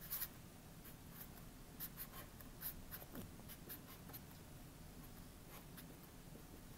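Felt-tip marker drawing on paper: faint short scratchy strokes of the tip, loudest in the first three seconds or so and thinning out after that.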